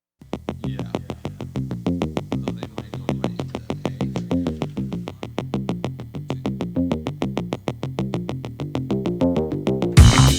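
Electronic synthesizer music with a quick, even pulse of short notes over a moving bass line. A louder, fuller beat comes in near the end.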